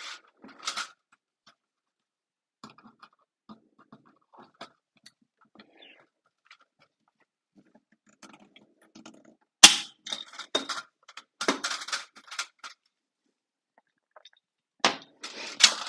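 Hand rivet gun setting a blind rivet: light handling clicks, then a sharp crack about ten seconds in followed by a run of quick crunching, clicking squeezes of the tool, and another run near the end.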